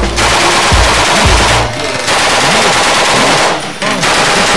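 Belt-fed M60 machine gun (7.62×51 mm) firing on full auto in three sustained bursts, with two short pauses between them. Music plays faintly underneath.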